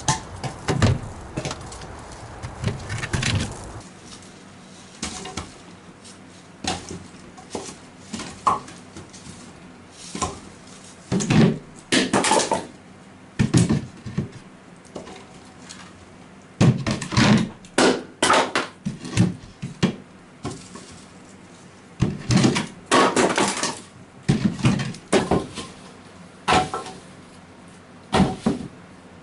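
Split firewood logs sliding out of a plastic pipe chute and dropping onto a concrete floor and onto each other, a long series of wooden knocks and clatters, often several in quick succession.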